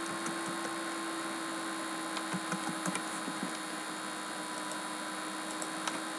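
Steady mains hum and hiss on the recording microphone, with a few faint, short clicks of a computer mouse as lines are drawn.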